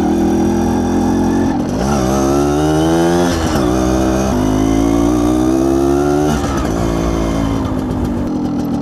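Yamaha RX 100's single-cylinder two-stroke engine pulling the bike along. Its note climbs, drops sharply about three and a half seconds in, climbs again and drops back near six and a half seconds, then runs steadier.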